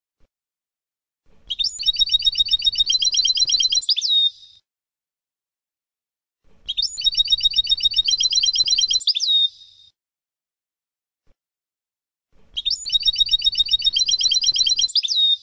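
European goldfinch song in the Palestinian "Abu Khalil" style, played as a tutor recording for young goldfinches. The same phrase comes three times with silent gaps between: a fast, high trill of about ten notes a second, ending in a sharp downward-sliding note.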